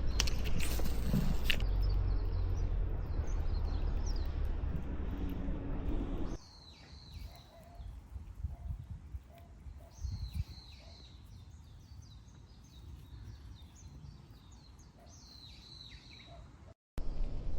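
A steady low rumbling noise for about six seconds, then it cuts off and small birds chirp repeatedly, with short high notes over a quiet background.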